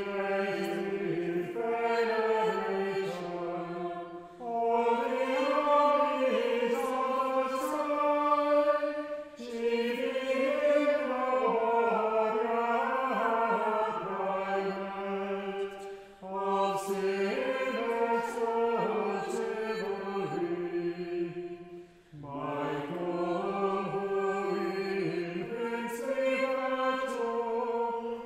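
Small mixed choir singing Anglican chant in unaccompanied-sounding chords, phrase by phrase, with brief pauses for breath between the verses.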